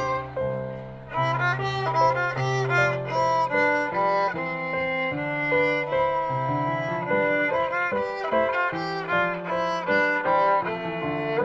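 Violin playing a melody of short and held notes, accompanied by an electronic keyboard holding sustained bass notes beneath it, with a brief break in the playing about a second in.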